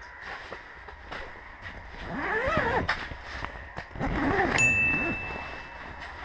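Wordless rising and falling vocal sounds from a man, twice, over scattered handling clicks and knocks, with a steady high beep starting suddenly a little past the middle and lasting about a second.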